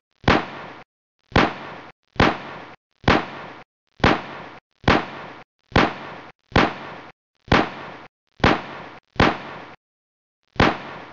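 A run of sharp bang-like hits, about one a second, each fading briefly and then cut off to dead silence; a longer pause comes before the last one near the end.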